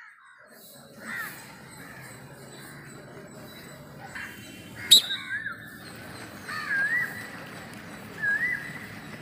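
A bird calling over steady outdoor background noise, with short wavy calls repeated every second or two. A single sharp snap, the loudest sound, comes about five seconds in.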